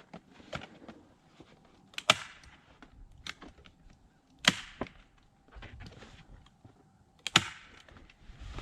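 Staple gun fastening tar paper to a wooden beehive: three sharp snaps about two to three seconds apart, with fainter clicks and handling noise between.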